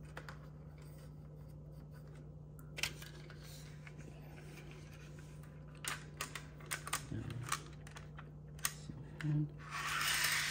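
Light plastic clicks and taps as a model train caboose is set onto a piece of track and pushed along it, over a steady low hum; a soft rushing noise starts near the end.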